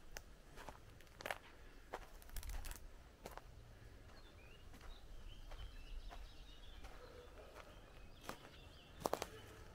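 Footsteps on the ground at a walking pace, with faint bird chirps in the background.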